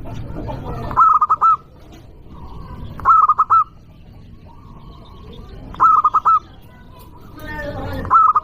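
Zebra dove (perkutut) cooing loudly: four short phrases of quick, clipped notes, roughly two to three seconds apart. Another pitched call is heard just before the last phrase.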